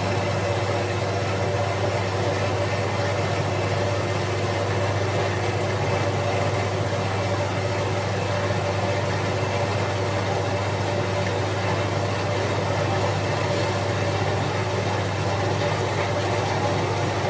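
Small belt-driven milling machine running steadily under its electric motor, a low hum with several steady higher tones, while the end of a steel plate is cut to a radius.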